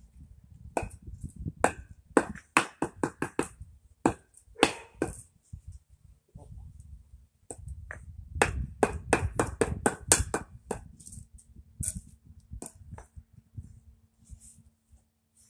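Sharp clacks of concrete pavers knocking together as they are handled and stacked, in irregular runs of quick knocks, several a second about two seconds in and again around the middle.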